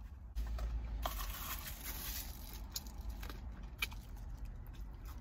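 Paper food wrapper rustling and crinkling while a fried chicken sandwich is handled and eaten. It is loudest from about a second in, followed by a few sharp clicks near the middle.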